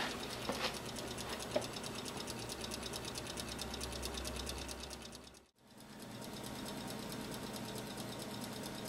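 Steady mechanical whirring hum with a fast, even pulse, and a light click in the first second. The hum fades out about five and a half seconds in and comes straight back.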